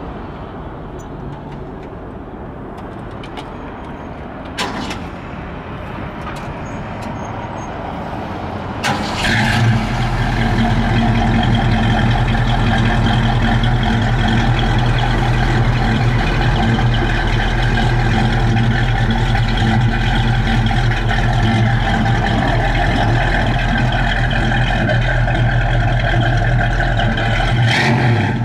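After a few seconds of low background noise and a click or two, the 1964½ Ford Mustang's 289 V8 starts about nine seconds in and settles into a steady idle.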